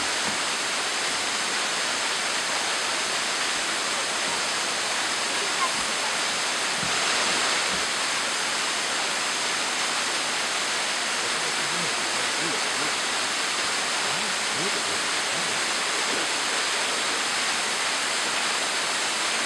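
Small waterfall pouring over a rock ledge onto boulders: a steady rush of falling, splashing water.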